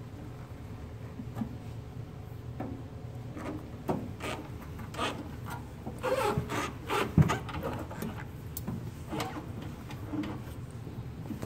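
Metal-housed nut grinder being slid and shifted on a wooden countertop into its steel anti-tip bracket: scraping and rubbing with scattered knocks, the loudest a single sharp clunk about seven seconds in.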